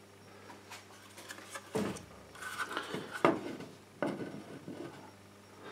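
Quiet handling noises: a few soft knocks and rubs, about two, three and four seconds in, as hand tools and a plastic electrical box are moved against a plasterboard wall.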